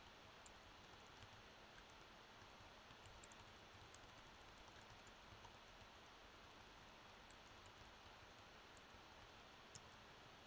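Near silence: faint room hiss with a few soft, irregular small clicks.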